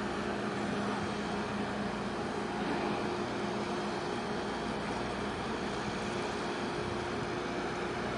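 Steady engine drone with a low, even hum and no change in level.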